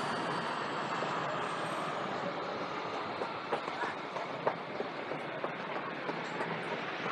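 A train running on the tracks beside the street, a steady rumble that slowly fades away. From about halfway through, footsteps on concrete steps click about twice a second.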